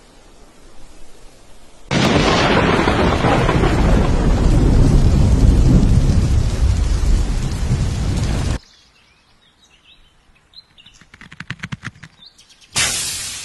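A loud, deep rumbling noise starts suddenly about two seconds in, holds steady for about six seconds and cuts off abruptly. Faint bird chirps and a quick run of ticks follow, then a second sudden loud burst near the end fades away.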